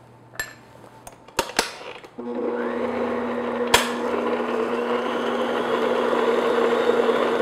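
A few clicks and knocks, then about two seconds in a stand mixer's motor starts and runs steadily with a constant hum, its flat beater mixing red velvet cake batter in a glass bowl to beat in the baking soda and vinegar. A single sharp click sounds about a second after it starts.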